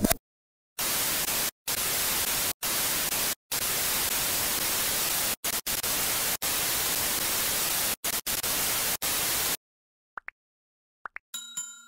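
TV static sound effect: a steady hiss of white noise, broken several times by brief silent gaps, that stops a couple of seconds before the end. It is followed by a few faint clicks and then a bright ringing ding, a notification-bell sound effect, starting near the end.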